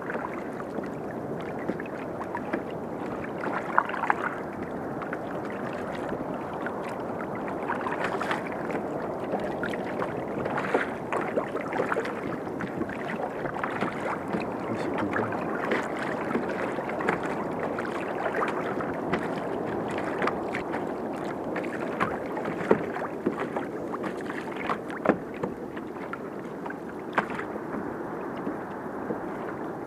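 Choppy seawater lapping and slapping against a fishing kayak's hull: a steady wash of water with frequent small, sharp splashes and a few louder slaps.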